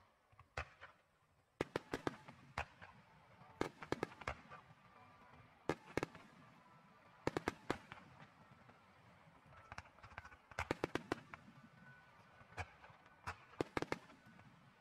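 Aerial firework shells bursting in quick clusters of sharp bangs, a group every second or two, with a continuous low rumble between them.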